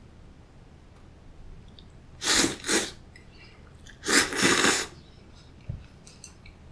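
Cold soba noodles slurped up from a cup of dipping sauce: two short slurps about two seconds in, then a longer one about four seconds in, followed by faint chewing.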